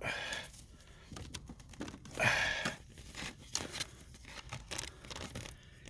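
Hands working plastic parts of a car's charging port and its dash housing: rustling and scraping with scattered clicks, and two louder rasping bursts, one at the very start and one a little over two seconds in.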